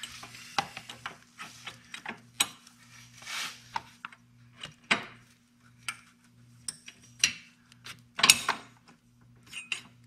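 Metal parts clinking and knocking as a chrome aftermarket brake pedal arm is handled and worked onto its pivot on a motorcycle: irregular sharp clicks, the loudest about eight seconds in, over a steady low hum.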